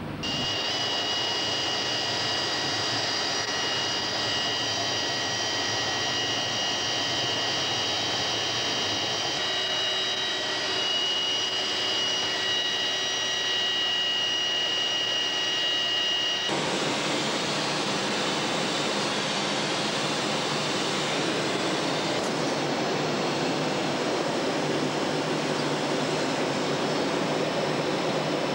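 A-4 Skyhawk's J52 turbojet running steadily: a rushing noise with a high, steady turbine whine over it. About 16 seconds in the sound cuts abruptly to a broader rushing noise without the whine.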